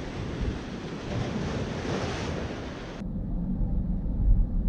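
Sea surf washing onto the beach, with wind buffeting the microphone. About three seconds in it cuts off abruptly to a low, steady road rumble from inside a moving car.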